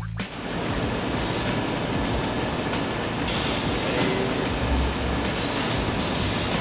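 Steady din of factory machinery on a ski production floor, with short hisses a little past the middle and again near the end.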